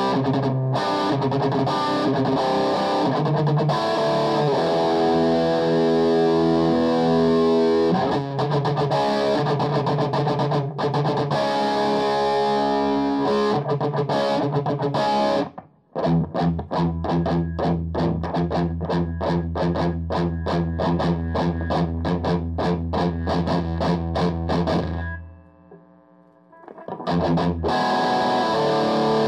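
Distorted electric guitar played through a Rhodes KSR Artemis amp with a TC Electronic G Major 2 effects unit in the loop. For the first half it plays sustained, ringing chords and notes. After a sudden stop it switches to fast, evenly repeated chugs on a low note, then breaks off briefly before one more chord near the end.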